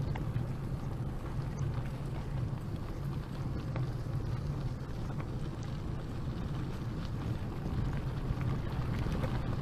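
Wind rushing over the microphone and a bicycle's tyres rolling over a gravel road, a steady low rumble with scattered small clicks of stones.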